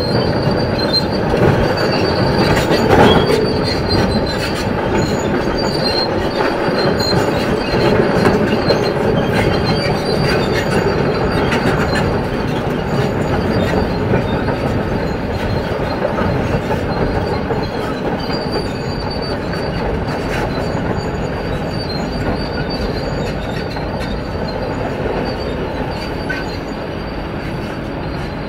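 Kobelco SK500LC tracked excavator travelling, its steel tracks squealing and clanking. There is a louder knock about three seconds in, and the sound eases a little toward the end.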